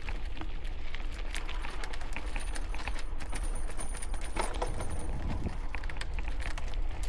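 Bicycle being ridden over rough, bumpy trail on a windy day: a steady low rumble of wind and tyres with scattered clicks and light rattles from the bike and ground. A faint thin high whistle is heard from about two to five seconds in.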